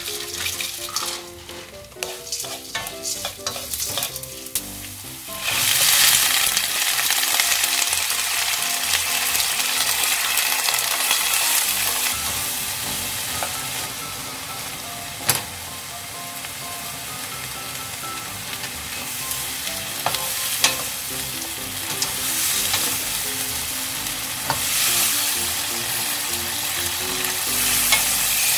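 Oil sizzling in a frying pan as a mala crayfish stir-fry is cooked: a light, uneven crackle of garlic, scallions and dried chillies at first, then from about five seconds in a loud, steady sizzle as ingredients are stirred, with a couple of sharp knocks of the utensil on the pan.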